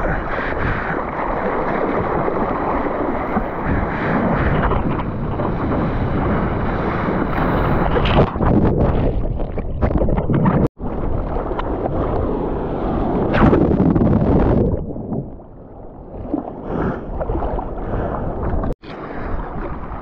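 Seawater rushing and splashing close on the microphone in the surf, with wind buffeting it, as a surfer goes for a wave. The sound drops out for an instant twice.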